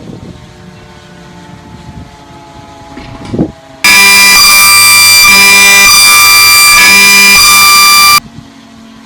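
A steady low machine hum, then about four seconds in a sudden, extremely loud, distorted blaring sound with several tones cuts in. It pulses for about four seconds and stops abruptly, leaving a quieter steady tone.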